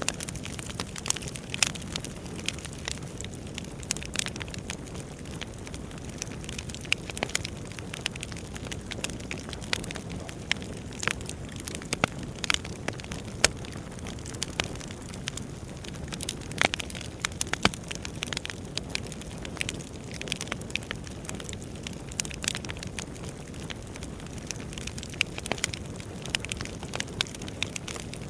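Wood fire burning: a steady low rumble of flames with frequent irregular sharp crackles and pops from the burning logs.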